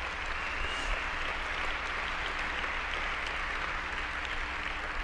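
Audience applauding: a steady spread of many hands clapping at an even level throughout.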